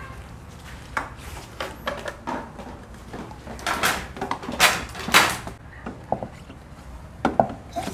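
Scattered clicks, knocks and rubbing as gloved hands refit washed plastic parts inside a water dispenser's top reservoir, with two louder rubbing noises a little past halfway.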